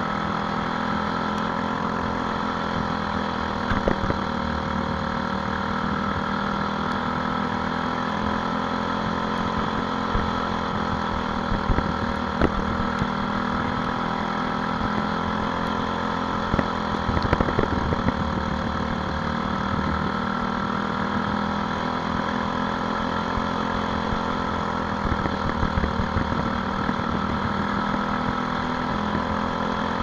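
Briggs & Stratton LO206 single-cylinder four-stroke kart engine running steadily at racing speed, heard close up from on board the kart. Its pitch dips slightly a couple of times through the corners, and there are a few brief knocks.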